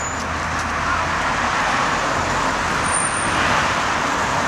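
City street traffic: cars driving past, a steady rush of engine and tyre noise.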